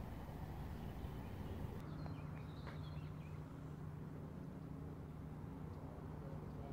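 Birds chirping briefly, over a steady low hum.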